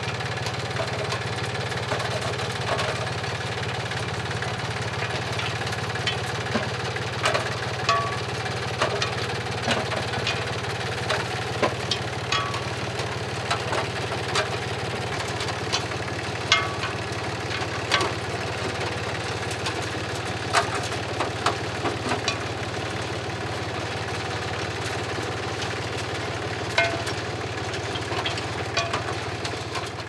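Small tractor's engine running steadily as it drives a potato harvester, with irregular sharp knocks and clatter from potatoes and the machinery over it.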